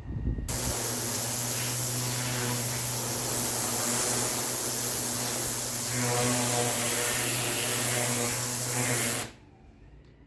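Pressure washer spraying imprinted concrete: a loud hiss of the water jet over the steady hum of the machine, starting about half a second in and cutting off suddenly near the end, used here to cut in the edges.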